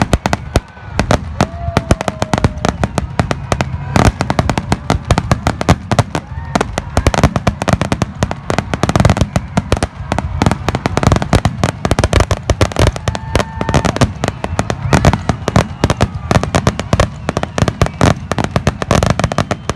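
Dense barrage of fireworks and firecrackers: rapid sharp bangs and crackles, many a second, going on without a break.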